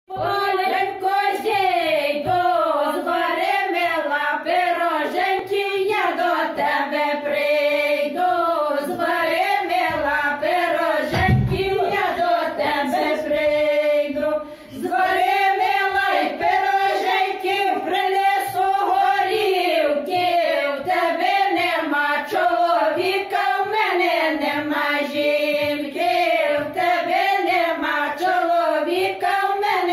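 A small group of elderly women singing a Ukrainian kolomyika folk song together, unaccompanied, with a short pause for breath about halfway through.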